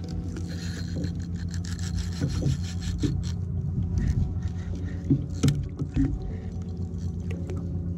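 Spinning reel being cranked to bring in a hooked fish on a hard-bent rod: a rough, rhythmic grinding whir with rapid clicks. A few louder knocks come around five to six seconds in.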